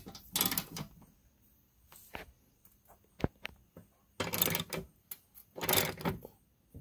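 Ratchet wrench clicking in short bursts as it works the 10 mm drain-plug bolt in a steel transmission pan, with a few single clicks between the bursts.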